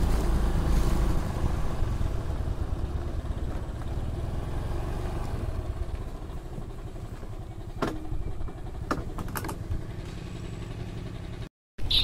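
Motorcycle engine running with a low rumble that slowly dies down, with a few sharp clicks about eight and nine seconds in.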